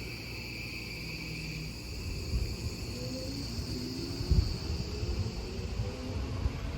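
A steady high insect buzz over the low rumble of an approaching electric train. The train's rumble builds from about two seconds in, with short rising motor tones and a thud about four seconds in.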